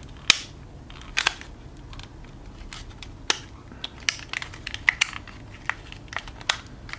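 Clear hard-plastic packaging box being handled and pried at, giving a scattered run of sharp plastic clicks and snaps, the loudest about a third of a second in.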